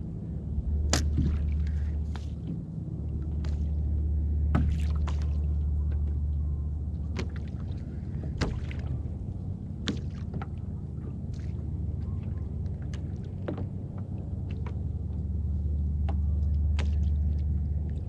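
Small waves lapping against a fishing kayak's hull over a steady low rumble that swells and fades, with a few scattered sharp clicks and knocks.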